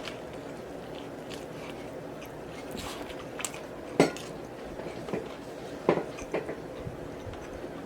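Close-miked eating sounds while working through a BBQ rib sandwich: a few sharp mouth clicks and small knocks over a quiet background, the loudest about four seconds in and again near six seconds.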